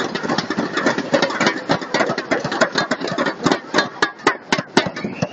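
Arena crowd applauding between points. Near the end the applause thins out to a few sharp, evenly spaced claps, about four a second, before stopping.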